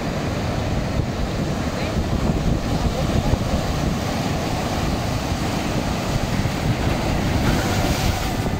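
Ocean surf breaking and washing over a rock ledge, with wind buffeting the microphone. Near the end a wave crashes against the ledge and throws spray, adding a brighter hiss.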